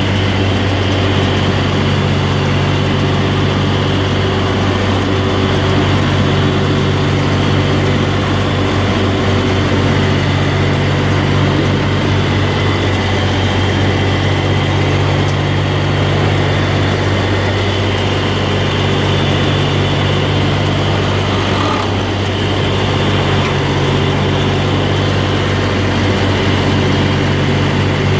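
Tractor engine running steadily while driving a Range Road mini baler, with the baler's machinery working; the low hum swells and eases every few seconds.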